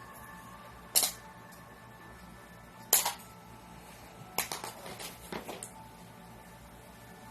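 Magnetic game tiles tossed one at a time and clacking as they land: a single sharp clack about a second in, another near three seconds, then a quick rattle of several clacks as a tile lands and settles between about four and a half and six seconds.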